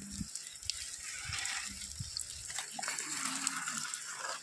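Water gushing and splashing: a steady rushing with scattered light clicks.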